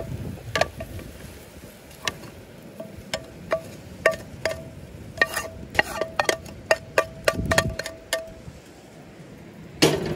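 A spatula tapping and scraping on a ceramic-coated frying pan: a long run of sharp taps, quickening in the middle, each with a short ring from the pan. Near the end the pan knocks down onto the grate of a camp stove.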